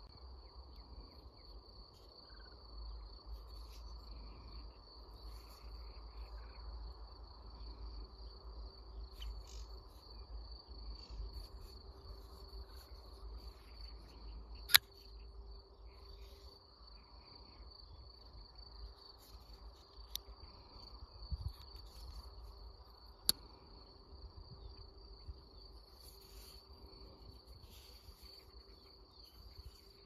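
Insects chirring steadily in the grass, one unbroken high-pitched trill. About halfway through comes a single sharp click, the Petrified Fish PFP05 folding knife's blade snapping open and locking, and a couple of fainter clicks follow later.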